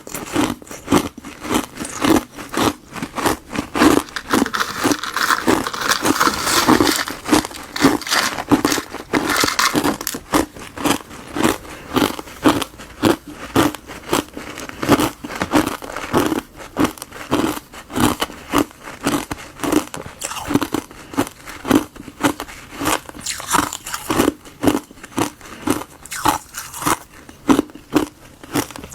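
Close-up crunching and chewing of frozen granules of tartary buckwheat and gardenia tea ice, in steady chews about twice a second.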